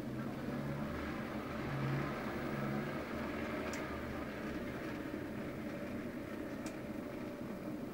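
Thin stream of water from a kitchen mixer tap running steadily into a stainless steel sink, with a low hum under it for the first few seconds and a couple of faint clicks.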